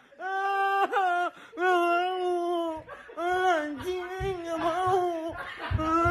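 A man wailing in a high, whining voice: a row of drawn-out cries about a second each, each dropping in pitch at the end. Low thumps and handling noise join from about halfway in.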